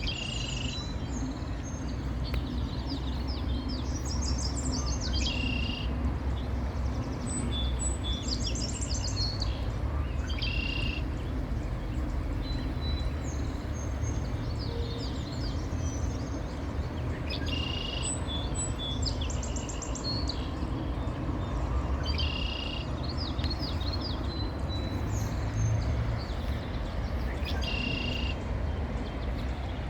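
Birds chirping outdoors: short, high, repeated call phrases, some of them rapid trills, coming every couple of seconds over a steady low rumble.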